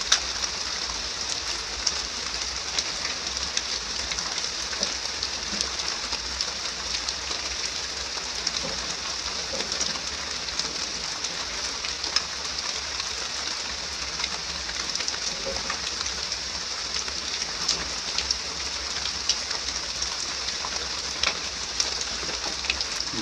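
Heavy rain falling steadily: an even hiss with many small drop ticks scattered through it.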